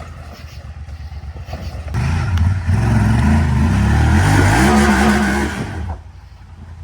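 Off-road vehicle engine running low, then revved hard from about two seconds in, its pitch climbing and falling for some four seconds before it drops back to a low rumble.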